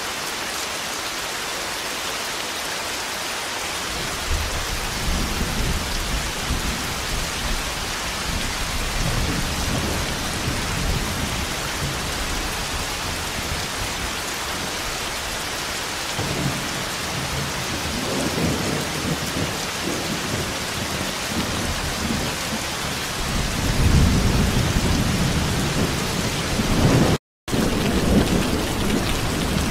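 Steady heavy rainfall with thunder rumbling in several low, rolling swells, the loudest about three quarters of the way through. The sound cuts out completely for a split second near the end.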